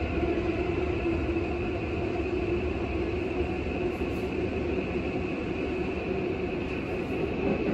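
Tokyo Metro 13000 series subway train running between stations, heard from inside the passenger car: steady wheel-and-track running noise with a steady hum underneath.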